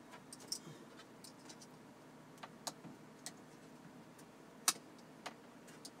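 Scattered small clicks and taps of plastic and metal from the removed dashboard display unit being handled and its rear connectors worked loose, one sharper tap about three-quarters of the way in.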